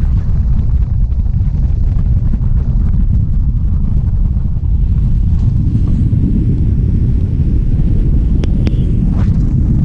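Wind buffeting the microphone on a moving boat, over a steady low rumble from the boat's motor.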